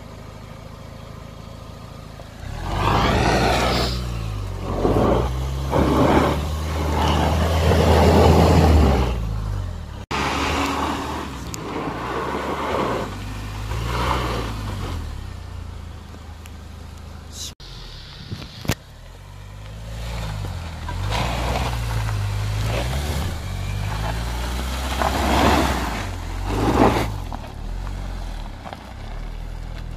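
Small SUV's engine revving up and down under load as it drives through a deep off-road section, with repeated surges of wheel and ground noise. The sound breaks off abruptly twice.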